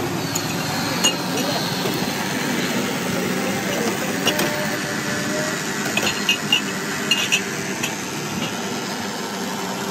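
Glasses and metal utensils clinking several times at a street drink stall, over steady street traffic and background noise.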